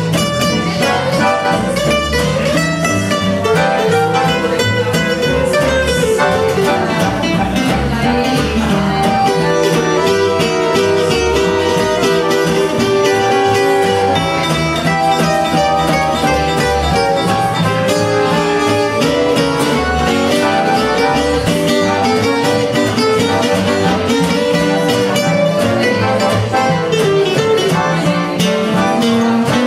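Live gypsy swing played by piano accordion, two acoustic guitars and double bass: a melody line over strummed rhythm guitar and a plucked bass, with a steady, even beat.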